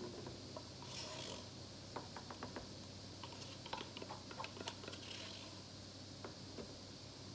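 A wooden stir stick scraping and tapping against the inside of a paper cup of acrylic paint, heard as a run of faint clicks and ticks between about two and five seconds in.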